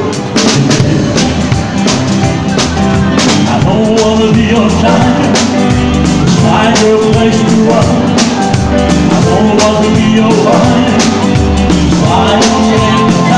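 Live band music dominated by a close drum kit played with sticks on snare, toms and cymbals, keeping a steady beat under the other instruments.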